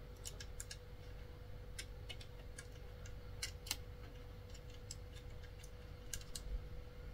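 Faint, irregular small metallic clicks of nuts and washers being threaded by hand onto bolts through a speaker baffle, over a faint steady hum.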